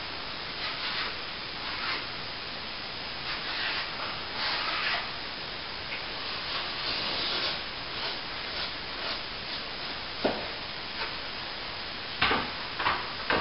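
Steel plastering trowel sweeping over wetted, setting plaster on an archway, polishing it to a smooth finish: a run of soft scraping strokes, followed near the end by a few sharp knocks.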